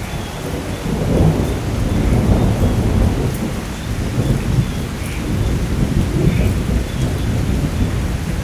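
Heavy rain with long rolling thunder, a deep rumble that swells and ebbs without a sharp crack.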